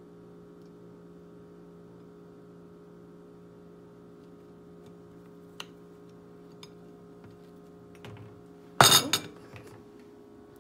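Steady low hum with a few faint ticks, then a short, loud clatter about nine seconds in as a plastic honey squeeze bottle is set down on the countertop, followed by a couple of lighter knocks.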